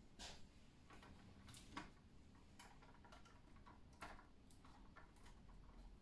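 Faint, irregular clicks and taps of a 1:18 scale diecast model car being gripped and handled on a tabletop.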